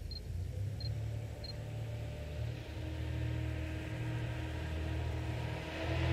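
Diesel locomotive engine rumbling as it approaches, growing steadily louder, with a steady low drone and a few engine tones above it. Three short high beeps sound in the first second and a half.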